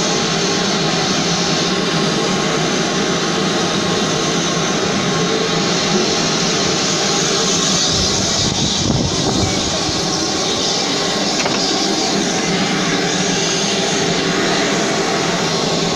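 Steam locomotive standing at the platform, letting off a steady, loud hiss of escaping steam.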